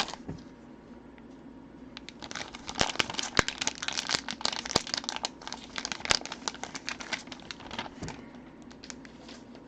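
Plastic trading-card packaging crinkling and crackling with sharp clicks as it is handled and opened. The crinkling starts about two seconds in and tapers off near the end.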